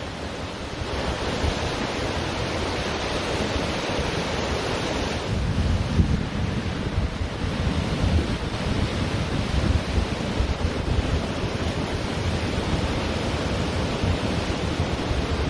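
Ocean surf washing onto a beach in a steady rush, with wind buffeting the microphone in low gusty rumbles that grow stronger about a third of the way in.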